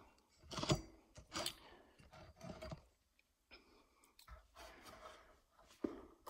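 Handling noise as a tablet camera is set in position: a handful of faint, scattered clicks and knocks, the sharpest a little under a second in.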